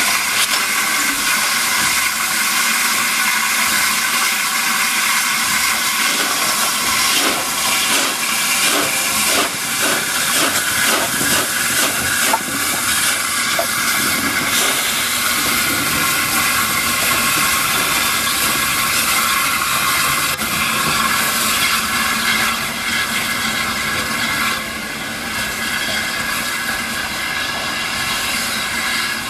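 BR Standard Class 8P 71000 Duke of Gloucester, a three-cylinder steam locomotive, working past and away: a loud, steady hiss of steam from its open cylinder drain cocks over the chuff of its exhaust, the beats coming about twice a second through the middle. It grows a little quieter near the end as it draws away.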